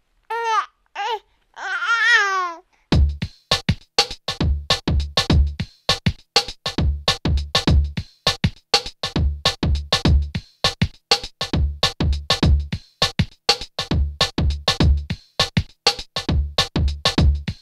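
A few brief high-pitched vocal sounds. About three seconds in, background electronic music starts, with a steady drum-machine beat and deep bass thumps.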